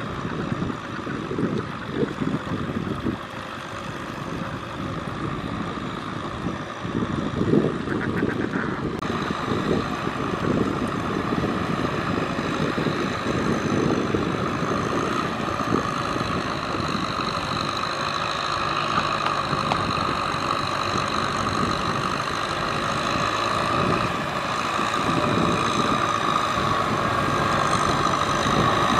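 Farm tractor's diesel engine running steadily under load as it works a muddy field, growing louder toward the end as it comes closer.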